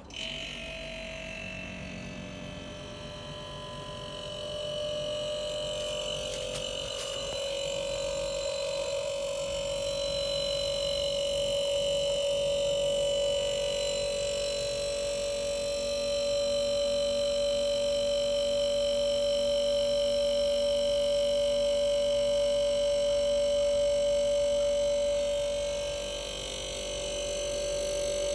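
Arçelik 5233 refrigerator compressor switching on and running with a steady tonal hum. The hum grows louder over the first few seconds and dips briefly near the end.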